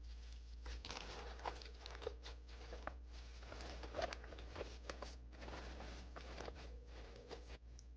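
Kitchen food-preparation handling sounds: irregular rustling with scattered light clicks and taps, over a steady low hum.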